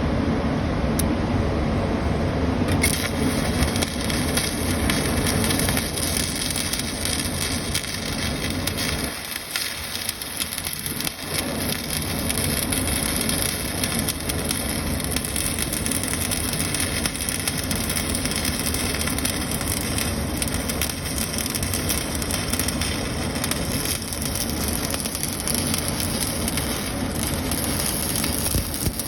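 Electric welding arc crackling steadily, with a brief lull about ten seconds in.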